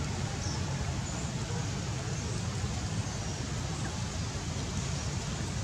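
Steady outdoor background noise: an even hiss over a low hum, with no monkey calls standing out.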